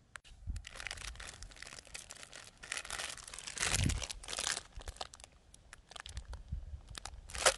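Thin plastic salad bag of pre-cut lettuce mix crinkling as it is handled, an irregular crackle that is loudest in the middle.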